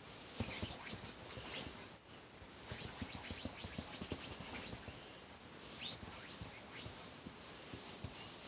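A cat's claws scratching and dragging at a cotton bed sheet as it paws at the wrinkles: a run of short, scratchy rustles of fabric, with two sharper scrapes about a second and a half in and about six seconds in.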